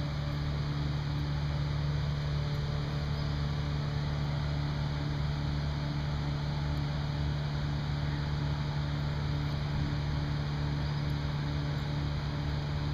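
A steady low mechanical hum, like a motor running without change, with a hiss over it.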